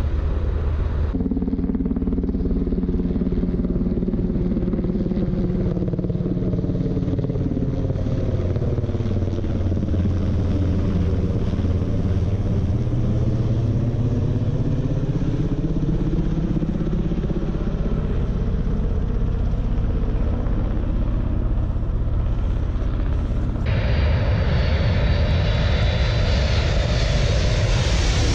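A Sikorsky S-92 helicopter flying overhead: a steady droning hum from its rotors and turbines whose pitch sags and then climbs back as it passes. About 24 s in, a Boeing C-17A Globemaster III's four turbofan jet engines take over, louder and hissier, as the transport comes over low on approach.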